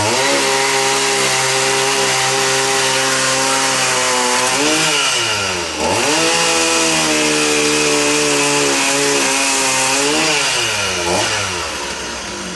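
Two-stroke chainsaw running at high revs while carving into a dead, dry tree trunk. Its engine note sags and climbs back about five seconds in and again near the end as the throttle and cutting load change.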